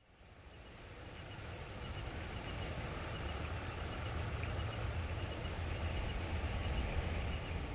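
Outdoor ambience: a steady rushing noise with a low, fluctuating rumble, fading in over the first two seconds, with faint repeated high chirps above it.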